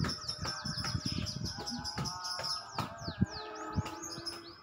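Birds chirping: a rapid, continuous run of short calls that sweep downward in pitch, over irregular low thumps.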